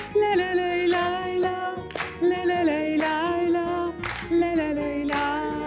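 Woman singing an Arabic song in Iraqi dialect, holding long notes that glide between pitches, over musical accompaniment.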